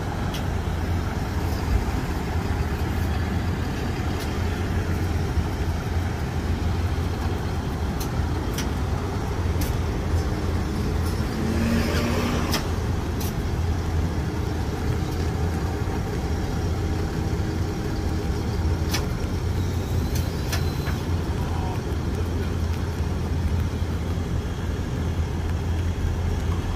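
Tow truck engine running steadily at close range, a constant low hum with a few faint clicks over it.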